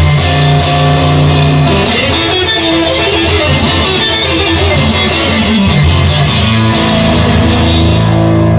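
Instrumental rock music: guitar and drums playing, without singing.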